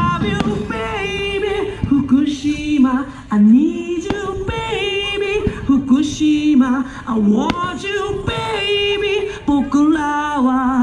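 Music: a single voice singing a melody, holding notes and stepping between them, with little accompaniment heard.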